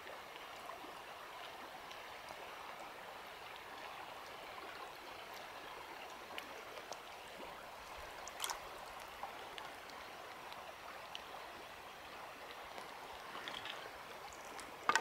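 Shallow stream water running over gravel, a steady trickling hiss, with a few brief clicks, the clearest about eight and a half seconds in and another near the end.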